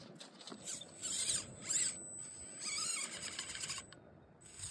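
Small RC rock crawler's electric motor and geared drivetrain whining in several short bursts as it is throttled up a rock face, the whine rising and falling in pitch.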